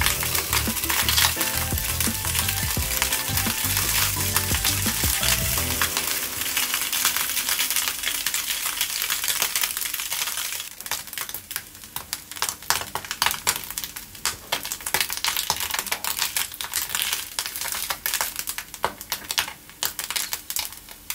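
Black hanpen fish cakes frying in a nonstick pan: a steady sizzle that turns into irregular crackling and spitting about halfway through. Background music plays over the first few seconds.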